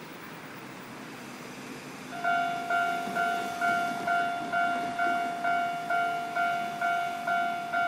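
Railway level-crossing warning bell starting up about two seconds in, a sharp repeating ding a little over twice a second, each stroke dying away before the next. It warns that a train is approaching and the barriers are about to come down. Before it starts, only passing car traffic is heard.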